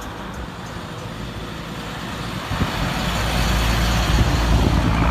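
A road vehicle's engine runs steadily and grows louder, with a low rumble building up from about halfway through.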